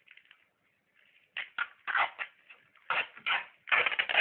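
Plastic freezer bag and adhesive tape being wound tight around salted fish: a run of short crinkling, rasping bursts, loudest near the end.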